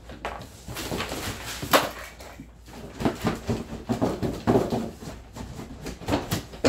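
Large cardboard shipping box being flipped upside down and lifted off two firework cakes: irregular cardboard scraping and rustling with knocks of the box and cakes against the table, a sharp knock just before two seconds in.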